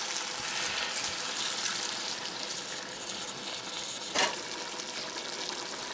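Red wine poured from a bottle into a hot cast-iron Dutch oven of browned meat and vegetables, the stew sizzling steadily as the liquid goes in. A single short knock about four seconds in.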